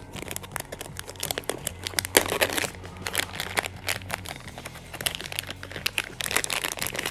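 Clear plastic parts bag crinkling irregularly as it is handled in the hands.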